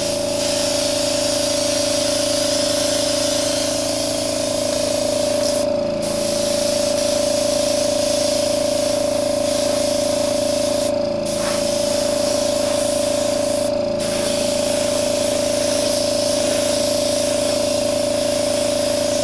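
Airbrush spraying paint in a steady hiss while a coat is laid on a leather sneaker, cut off briefly three times as the trigger is let go. A steady hum carries on underneath without a break.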